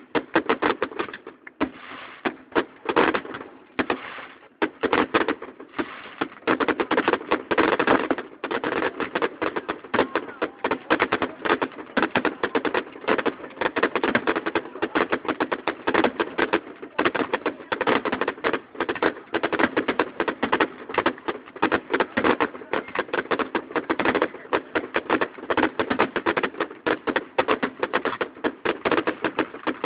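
Fireworks display: a dense, unbroken barrage of bangs and crackling from shells bursting in quick succession, heard through a phone's microphone.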